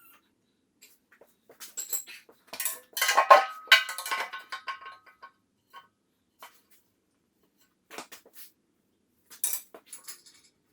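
Metal parts and tools clanking and clinking as they are handled during heavy-equipment repair, with a dense clatter about three seconds in that rings briefly, then a few lighter clinks near the end.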